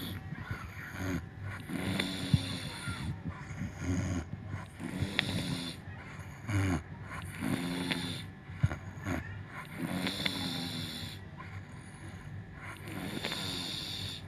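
Elderly woman snoring in deep sleep, a run of short, low snores repeating unevenly, with a few sharp clicks between them.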